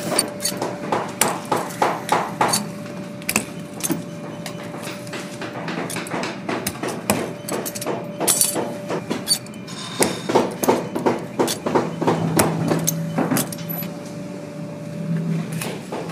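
Pliers gripping and prying metal lace hooks and eyelets out of a worn leather packer boot's upper, giving quick runs of sharp metallic clicks and snaps, the thickest near the start and again about ten seconds in. A steady hum runs underneath.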